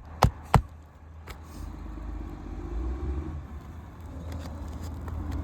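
Two sharp hammer blows on roofing nails just after the start, ending a run of even blows, then a steady low rumble.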